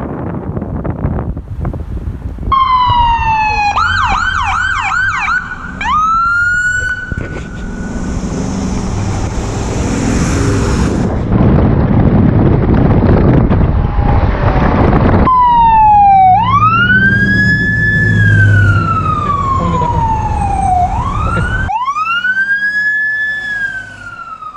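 Emergency vehicle sirens, in separate clips. A few seconds in comes a fast yelp warble, about three cycles a second, that settles into a steady high tone. After a stretch of loud rushing traffic and engine noise, a wail siren rises and falls slowly, each sweep taking about five seconds.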